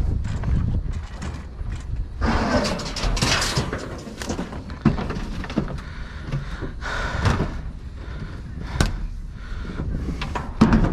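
Junk being rummaged through and handled: a string of knocks, clanks and scraping rustles, with a low steady rumble underneath.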